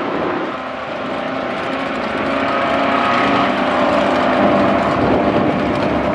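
Engines of two drag-racing cars at full throttle, running down the strip side by side, a steady engine drone with a hiss over it.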